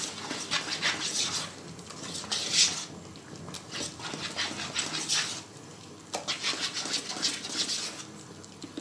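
Wire whisk beating thick chocolate cake batter by hand in a saucepan: quick rhythmic swishing and scraping strokes, louder for the first few seconds and lighter after.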